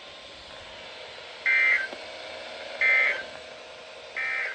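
Three short bursts of EAS end-of-message data tones, the warbling two-tone digital code of the Emergency Alert System, about 1.3 seconds apart, from a NOAA Weather Radio broadcast. They mark the end of the alert message. Faint radio hiss runs underneath.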